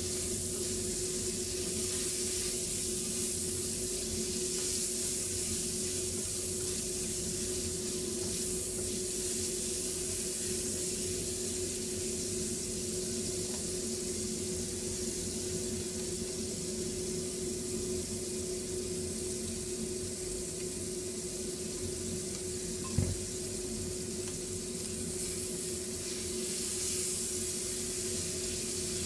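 Oil sizzling steadily as spring rolls (lumpia shanghai) deep-fry in a pot, with a steady hum underneath. There is a single sharp knock about three quarters of the way through.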